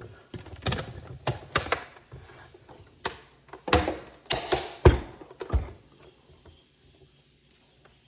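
A quick run of clicks and knocks from a countertop blender being handled, the loudest near the middle, then quiet. The motor does not start: the blender is not yet plugged in.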